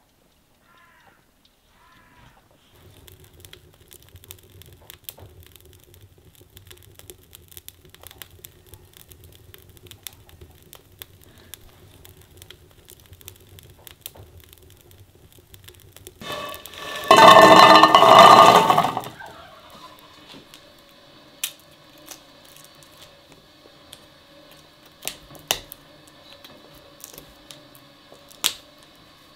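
Sharp, separate clicks of a small knife cracking and peeling roasted chestnut shells, a few seconds apart. A loud sound lasting about two seconds comes about halfway through.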